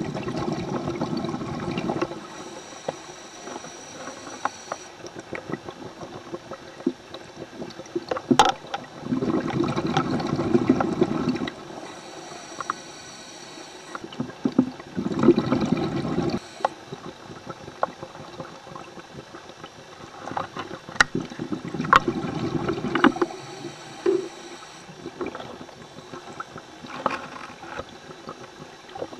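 A scuba diver's breathing heard underwater through a regulator: loud gurgling rushes of exhaled bubbles lasting two to three seconds, four times, with a faint high hiss of inhaling after some of them and scattered sharp clicks.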